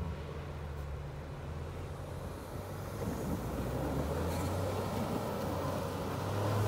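Engines of a Ford F-150 pickup and the Jeep towing it running under load, with tires churning through snow as the stuck truck is pulled out on a tow strap. A steady low engine hum, growing louder and rougher from about three seconds in as the truck starts to move.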